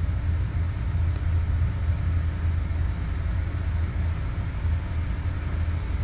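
Small-block Chevy 434 V8 idling at about 870 rpm on an engine dynamometer, a steady low rumble.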